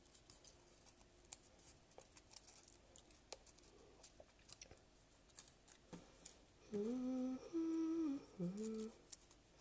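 A woman hums three short held notes near the end, over faint ticks and rustles of die-cut cardstock being handled.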